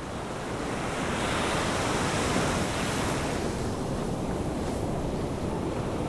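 Beach ambience sound effect laid over the footage: ocean surf washing steadily onto the shore.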